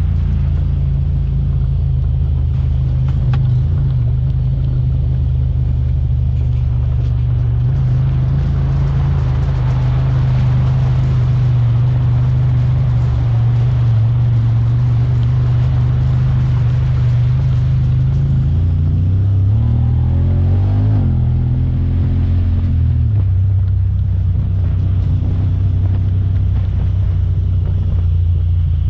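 Honda Talon 1000R side-by-side's parallel-twin engine running steadily under load, its pitch rising and falling briefly about two-thirds of the way through.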